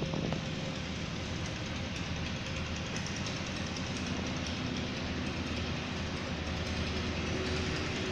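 Steady mechanical rumble and hum with a few faint whining tones, and a couple of light knocks near the start.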